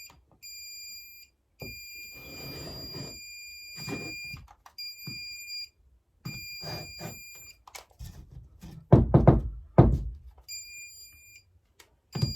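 Handheld stud finder sounding a steady high beep in several on-off stretches of a second or two, the signal that it is detecting something behind the plasterboard, here a cable running through the wall cavity. Two loud thumps come about nine and ten seconds in.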